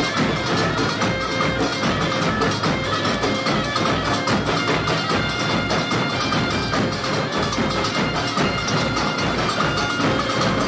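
Live Portuguese folk music: a Mirandese bagpipe plays over a big group of bass drums and snare drums beating a steady, even rhythm.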